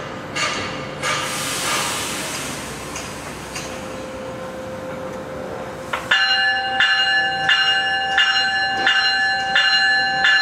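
Train bell on a GO Transit bi-level cab car ringing in even strokes, about one and a half a second, as the train gets ready to depart. A hiss comes and goes in the first few seconds, and about six seconds in the bell suddenly becomes much louder and clearer.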